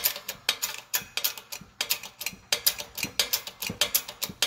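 Rapid, sharp clicking of a ratchet, several clicks a second, as a new seal is worked down over the water pump shaft. The seal is still being pressed in and has not yet bottomed out.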